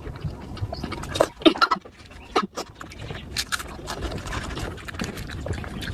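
Close-miked eating sounds: chewing and lip-smacking with irregular short clicks.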